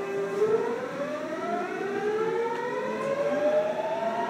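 Seoul Line 8 8000-series electric train accelerating away from a station: the traction motors and their inverter give a whine that holds one pitch, then about half a second in starts climbing steadily as several tones rising together, over the rumble of the running train.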